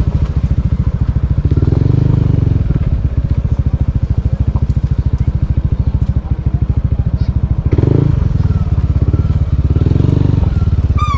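Motorcycle engine running with an even, fast pulsing beat, swelling a little in places.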